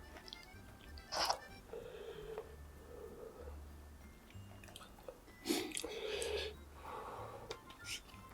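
A person chewing food close to the microphone, with a short sharper noise about a second in and a louder run of wet chewing sounds around five and a half seconds in. Soft background music plays underneath.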